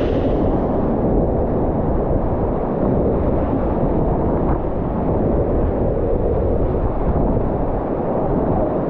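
Steady, loud rushing of whitewater rapids, a dense roar that is muffled, with little high end.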